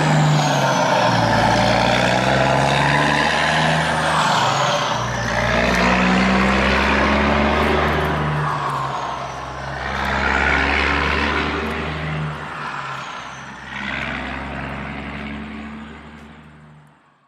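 Engine sound of a radio-controlled truck carrying an excavator, rising and falling as it drives, fading out near the end.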